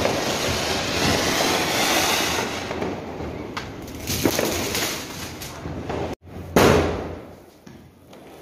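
Ground fountain firework (flower pot) hissing loudly as it sprays sparks, weakening after about three seconds. After an abrupt break, a loud thud comes about six and a half seconds in and dies away.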